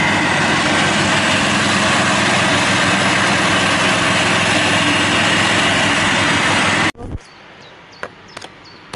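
Riding lawn mower's engine running steadily while it mows, a loud, even drone with a whirring hiss over it. About seven seconds in it cuts off abruptly, leaving a quiet background with a few light clicks.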